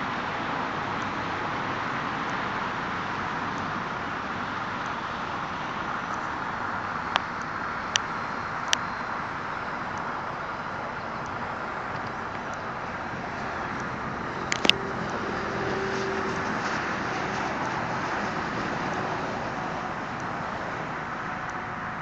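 Steady outdoor background rushing with no clear pitch, broken by a few sharp clicks: three between about seven and nine seconds in, and a louder pair near fourteen and a half seconds.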